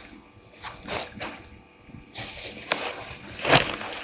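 African elephant bull moving through dry grass close to the microphone: a series of rustling, crunching swishes. The loudest comes near the end, as the animal passes right by.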